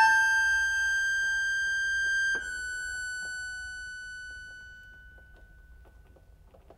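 Background instrumental music ending on long held notes, with a new note coming in about two seconds in, then fading out over the next few seconds.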